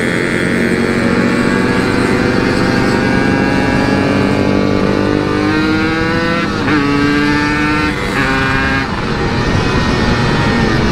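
Yamaha RX-King two-stroke single-cylinder engine with an aftermarket CRC series exhaust, accelerating under load: its pitch climbs for several seconds, drops at an upshift, climbs again briefly, drops at a second upshift and then holds steady. The rider says the carburettor still needs setting, with the pull dropping in fourth gear.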